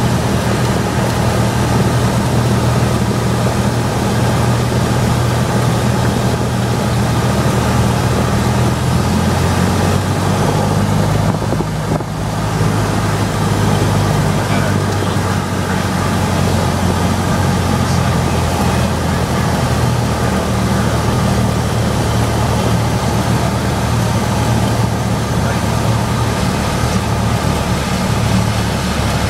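Cessna 172's single piston engine and propeller running steadily inside the cabin on final approach, with wind rush over the airframe. About a third of the way through, the engine note drops lower as power is reduced for landing.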